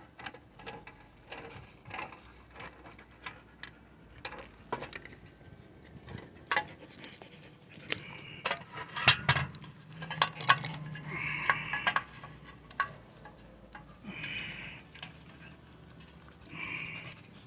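Irregular metallic clinks and taps of a wrench working on the waterer's threaded hex-nipple fittings as they are tightened, with a few short high squeaks about two thirds of the way in and near the end.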